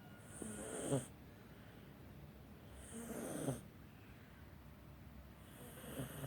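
A sleeping cat snoring: three slow snoring breaths about two and a half seconds apart, each swelling to a brief peak at its end.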